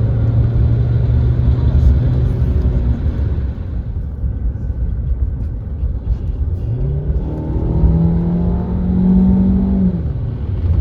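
Car engine and road rumble heard from inside the cabin, with the engine note climbing as the car accelerates about two-thirds of the way through, then dropping back near the end.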